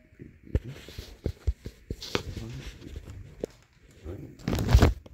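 Handling noise from a phone being moved: irregular knocks and clicks with rustling between them, and a louder rustle near the end.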